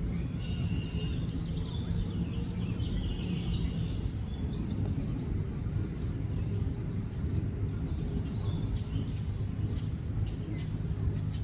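Songbirds chirping: a run of quick high calls in the first few seconds, then three loud sharp notes about two-thirds of a second apart around the middle and another near the end, over a steady low rumble.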